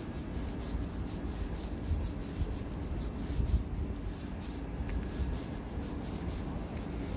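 Steady low rumbling noise with a faint hiss above it, no distinct events.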